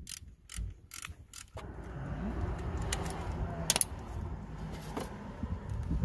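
Ratchet wrench clicking in a quick run of strokes as it tightens the new thermostat housing's E-Torx bolts, stopping about one and a half seconds in. After that come a few separate sharp clicks as the thermostat heater's wiring connector is pushed on.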